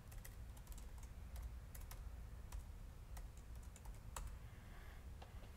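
Faint, irregular keystrokes on a laptop keyboard as a short chat prompt is typed, over a low steady hum.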